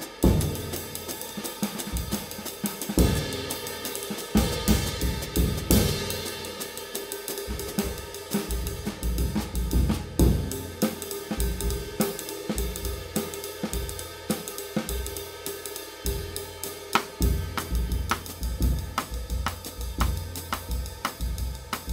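Drum kit playing, with cymbals and hi-hat ringing over kick and snare hits that grow quicker and more even in the second half.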